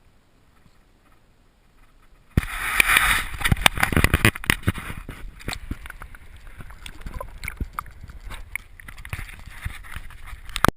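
Water sloshing and splashing with many irregular knocks and clicks, starting suddenly about two seconds in after a faint stretch.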